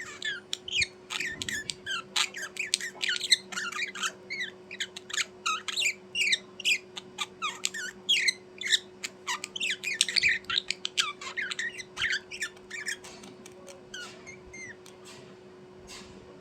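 Small birds chirping in a rapid, dense chatter of short high calls, thinning out in the last few seconds.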